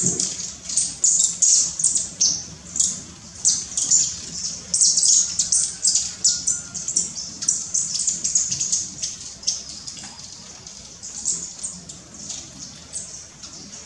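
High, thin bird chips and twitters in quick, overlapping succession, thinning out after about ten seconds.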